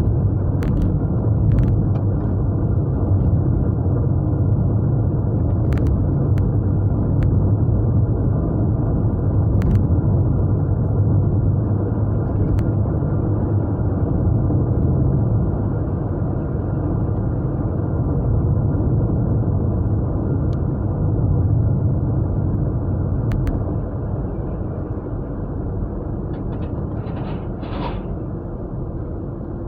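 Japanese V6 car driving, its engine and tyre noise heard from inside the cabin as a steady low rumble that eases off a little near the end.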